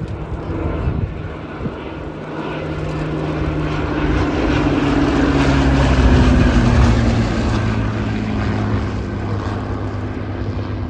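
Piston-engined propeller aircraft flying past. The sound swells to its loudest about six seconds in, and the engine note drops in pitch as the aircraft goes by.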